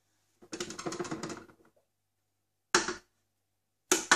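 Spatula scraping and knocking against the stainless-steel bowl of a Krups food processor, in runs of quick clicking strokes. There is one run about half a second in, a short one near three seconds, and another starting near the end.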